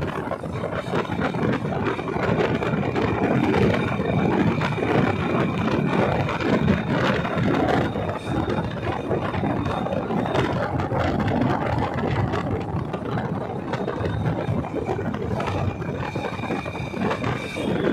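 Motorcycle engine running while riding along a street, with steady road and traffic noise. A faint high whine comes and goes.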